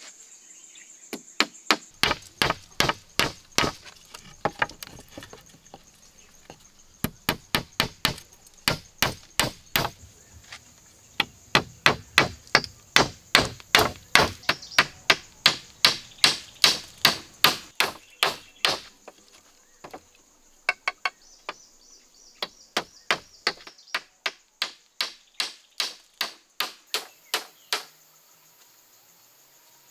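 Hammer blows on a wooden roof frame of poles, in runs of about two to three sharp strikes a second with short pauses between the runs.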